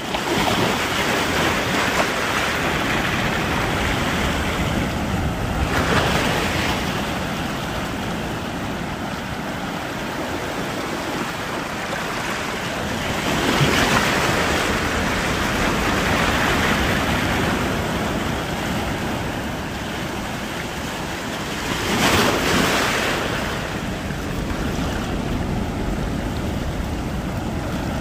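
Ocean surf breaking on a rocky beach: a continuous rushing wash of water that swells three times as bigger waves break and spill in.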